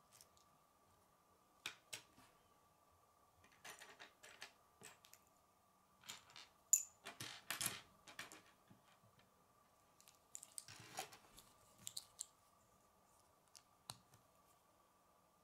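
Plastic K'nex construction pieces clicking and snapping together as they are handled and fitted, with small rattles and taps of parts set on a wooden table; busiest in the middle, over a faint steady high tone.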